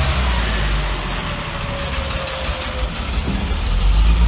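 Engine of a Ford flatbed tow truck rumbling as the truck drives slowly past, with a faint whine falling in pitch. The rumble swells again near the end.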